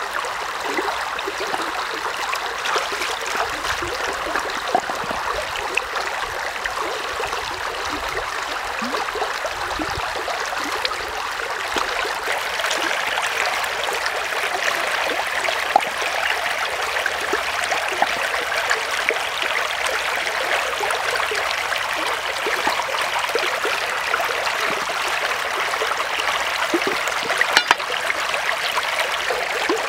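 Shallow stream running steadily over rocks, a continuous rushing, trickling water sound. A few sharp clicks stand out, one about halfway through and a small cluster near the end.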